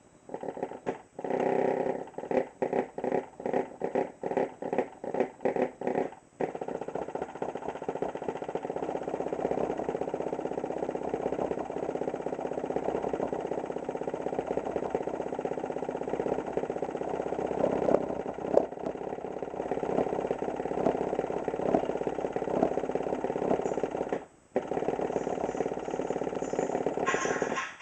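Custom-built 12-inch subwoofer driven hard at high cone excursion. It pulses about two or three times a second for the first six seconds, then holds a steady continuous sound that cuts out briefly near the end.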